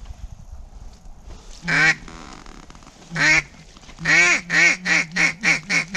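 Mallard-style duck call blown by a hunter: two single loud quacks, then a fast run of about seven quacks that get shorter and closer together, calling to a circling duck.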